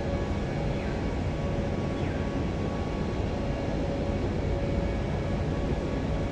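Steady background noise, a deep even rumble with a faint steady hum running through it.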